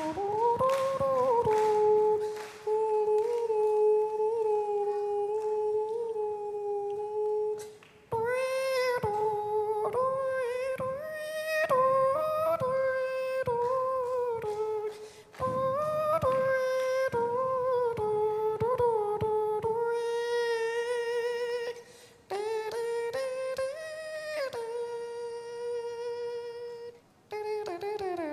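A man imitating the đàn bầu (Vietnamese monochord) with his voice, humming a melody of held notes joined by sliding pitch bends. The line breaks off briefly a few times.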